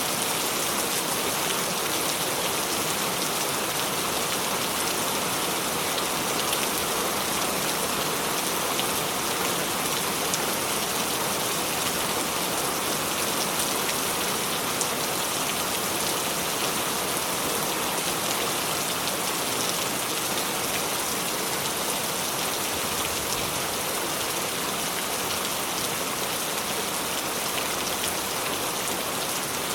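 Steady rain falling, an even, unbroken hiss of many drops with no thunder.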